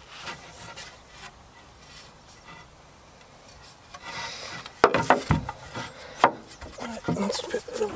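Timber pieces of a wooden gate being handled and rubbed against each other. Several sharp wooden knocks come in the second half.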